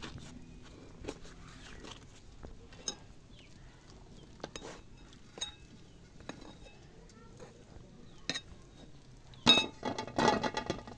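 A metal spoon clinking and scraping against a small metal dish on a metal tray, in scattered light taps. About nine and a half seconds in comes a louder run of ringing metal clatter as the spoon is set down in the dish.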